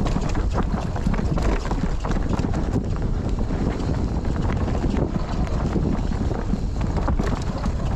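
Mountain bike rattling down a rough bike-park trail, with a dense run of irregular clicks and knocks from the bike and tyres over the ground. Wind buffets the microphone throughout.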